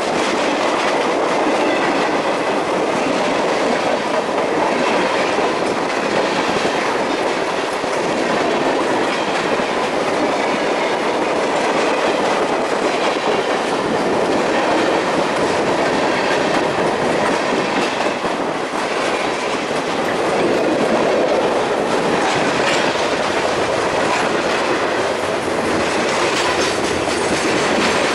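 Freight cars rolling steadily past at close range. Covered hoppers, flatcars and tank cars go by, and their steel wheels keep up a continuous running noise on the rails.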